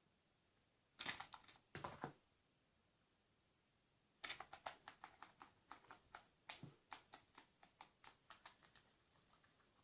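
Two short rustles about a second in. From about four seconds there is a fast run of light taps and clicks that slowly thins out: a lesser black-backed gull pecking at chips, its beak tapping at the food.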